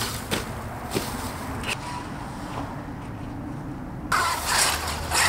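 Losi Super Rock Rey RC truck running off-road over dirt and gravel: a steady rush of tyre and drivetrain noise with a few small knocks, getting louder about four seconds in.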